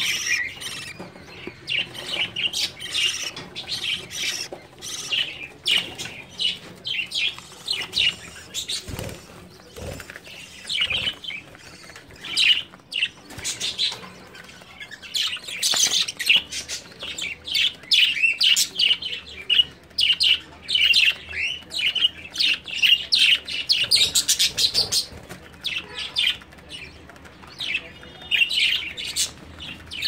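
Budgerigars chirping and chattering in quick, overlapping high twitters, busiest through the middle of the stretch.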